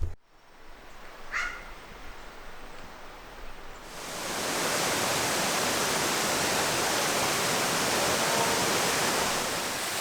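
Small waterfall's water rushing as a steady, even noise that swells up about four seconds in and then holds. Before that there is quieter outdoor ambience with one brief high chirp about a second and a half in.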